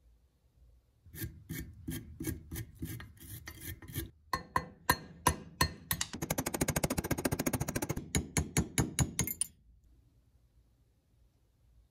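A pointed metal hand tool scraping and picking in a slot of an old cast-metal hand-grinder housing. Irregular scratchy clicks give way about six seconds in to rapid, dense scraping, then a few slower strokes, and stop a little after nine seconds.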